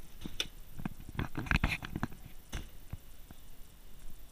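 A run of short knocks and handling rustle, thickest about a second and a half in, as the Chevrolet Avalanche's door is shut and the camera is carried away from the truck.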